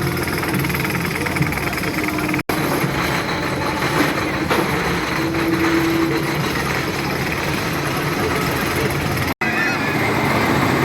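Loud, dense rumbling noise from the Wicker Man wooden roller coaster and the ride area around it, with no clear speech. The sound drops out abruptly twice, about two and a half seconds in and again near the end.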